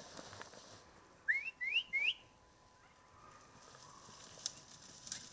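Three short rising whistles in quick succession about a second in, each sweeping up in pitch, followed near the end by two faint sharp clicks.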